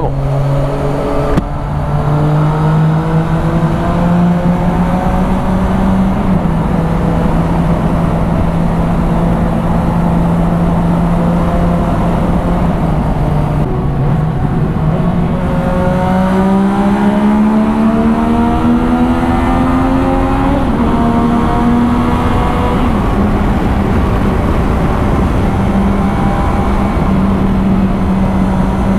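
Yamaha Tracer 900's three-cylinder engine with an Akrapovic exhaust under way at road speed inside a road tunnel, over wind rush. Its pitch climbs as it pulls at the start, holds steady, climbs again for several seconds past the middle, drops back about two-thirds of the way through, then holds steady.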